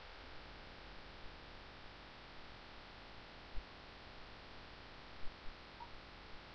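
Faint steady hiss and hum of a desktop microphone's background noise, with a few faint clicks from a computer mouse, a low thump about halfway through and two quick clicks a little later.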